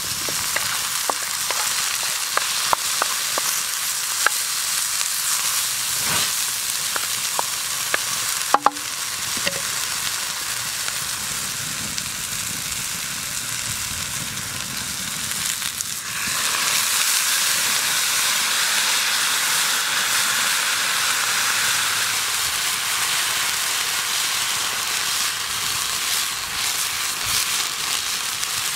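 Sliced mushrooms and onion frying in a pan over a wood fire: a steady sizzle with scattered sharp pops in the first part and a short clink about eight seconds in. A little past halfway, mushroom broth goes into the hot pan and the sizzle turns louder and fuller.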